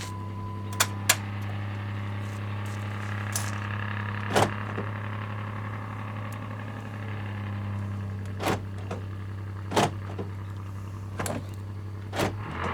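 Jeep Patriot's power window motor running for several seconds while the door's switches are worked. Sharp clicks come several times through it, over a steady low hum from the vehicle.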